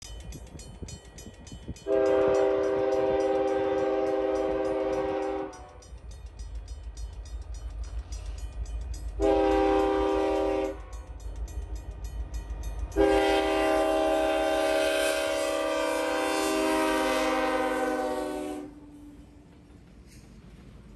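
Canadian National diesel freight locomotive's multi-note air horn sounding three blasts, long, short, long, with the lowest note dropping slightly late in the last blast. Under it runs the steady low rumble of the approaching locomotives and train.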